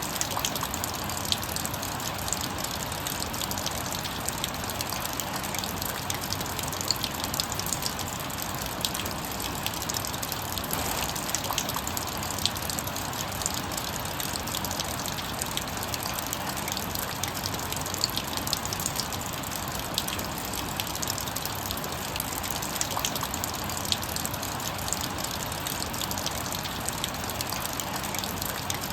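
Rain falling steadily, with rainwater dripping and splashing off a garage roof in many small sharp drops over a constant hiss.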